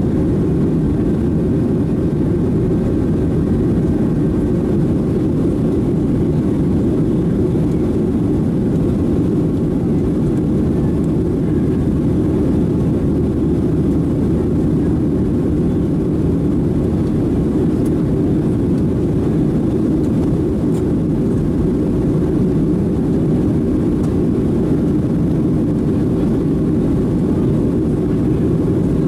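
Steady cabin noise of a Boeing 737-700 in flight, heard from a seat beside the wing: its CFM56-7B jet engines and the rushing airflow make an even, unbroken low rumble.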